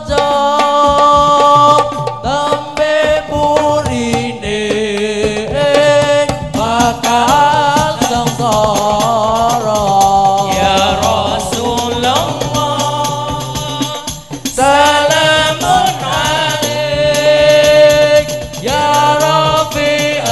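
Hadroh ensemble performing a sholawat: a lead voice sings a long, wavering devotional melody through a microphone over several rebana frame drums beaten in a fast, interlocking rhythm.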